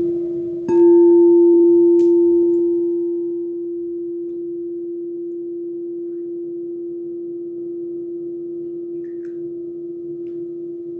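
Singing bowls: one bowl sings a steady, pure held tone while a second, higher-pitched bowl is struck about a second in and rings out, fading over about three seconds, with a light tap soon after.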